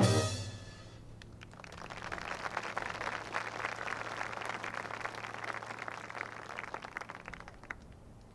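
A marching band's brass-and-drum chord cuts off at the very start and rings out for about a second. Then a small crowd's scattered applause rises and fades away near the end.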